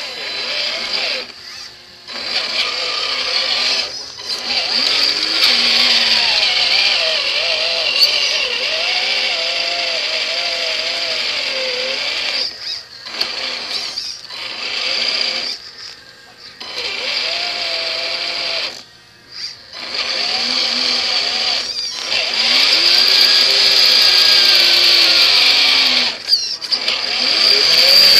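Radio-controlled crawler's electric motor and gearbox whining as it drives, cutting out briefly several times and rising and falling in pitch as the throttle changes.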